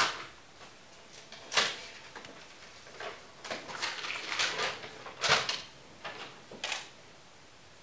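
Sheet of paper being handled at a table: a series of short, irregular rustles and light knocks, the sharpest about one and a half and five seconds in.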